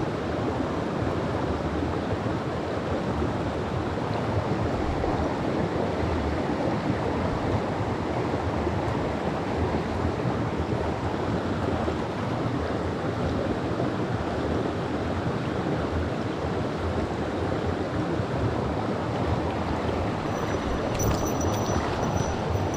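Mountain stream water rushing over rocks in a steady, even flow. Near the end a faint, thin high-pitched whine with a few light ticks comes in briefly.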